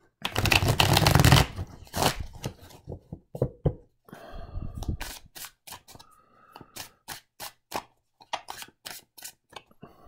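Thick-stock tarot cards being riffle-shuffled, a dense rapid fluttering rattle for about the first second and a half. Then they are shuffled overhand, giving a run of separate sharp card clicks and taps.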